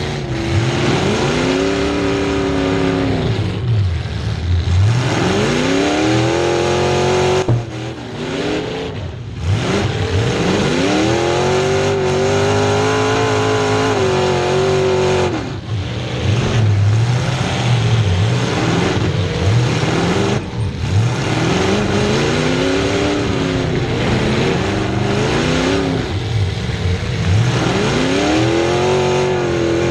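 Demolition derby car's engine, with open exhaust stacks poking up through the hood, revving up and falling back over and over, about a dozen times, heard from inside the stripped cab.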